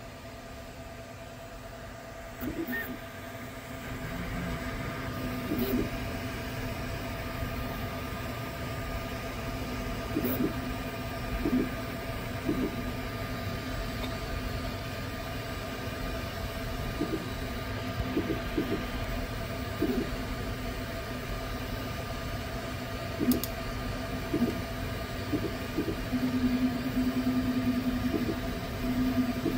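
Sovol SV08 3D printer printing: its toolhead cooling fans whir steadily while the stepper motors sound in short pitched chirps as the toolhead moves, with a longer steady motor tone near the end.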